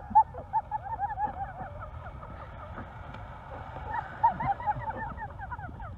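High-pitched laughter, in quick rising-and-falling bursts several times a second, over low rumbling wind on the microphone and a few bumps.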